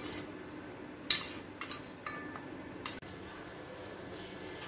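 Steel spoon clinking against a stainless steel bowl while slices of rusk are dipped in sugar syrup and lifted out: about five sharp, ringing clinks in the first three seconds, the loudest about a second in.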